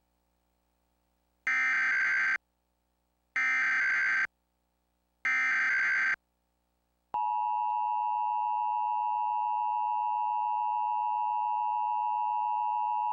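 Emergency Alert System tones from a Trilithic EASyCAP encoder: three one-second bursts of SAME header data, then the steady two-tone EAS attention signal, which starts about seven seconds in and holds. Together they mark the start of a required monthly test alert.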